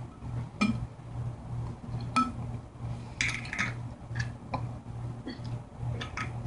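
Plastic water bottle used as a dip spit bottle, handled and squeezed in the hand, giving scattered sharp crinkles and clicks, a short flurry about three seconds in. Under it a steady low hum pulses about two and a half times a second.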